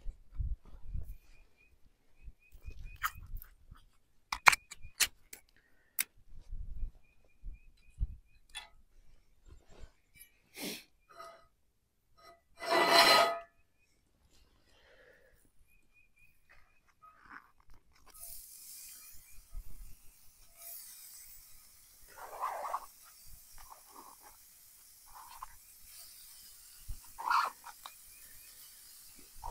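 Raw meat starting to sizzle in a hot cast iron skillet over a campfire, a steady hiss with small crackles that begins a little past the middle. Before that come clicks and knocks of handling, and one loud noise lasting about a second.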